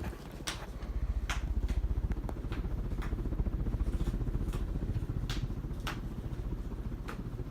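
Turn Of The Century Energy Select 52-inch ceiling fan running, a steady low rumble with a rapid flutter, with scattered light clicks every half second or so.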